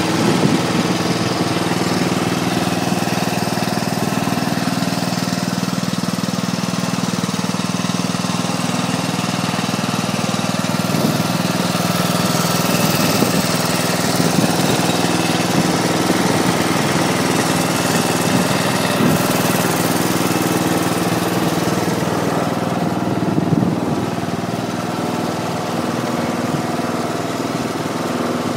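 Tractor engine running steadily, a little quieter near the end.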